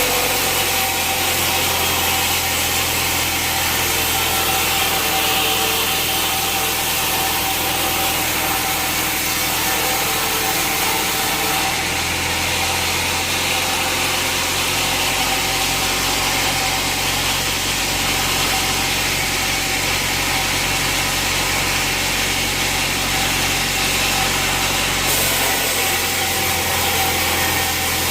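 Band sawmill cutting a jackfruit log: the blade runs steadily through the wood over a continuous engine drone, with a steady whine from the blade.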